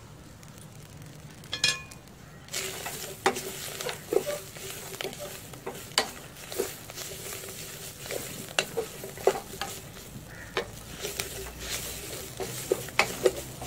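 Wooden spatula stirring water spinach (kang kong) in an enamel pot over a gas flame. From about two seconds in, the greens sizzle steadily and the spatula scrapes and knocks against the pot again and again.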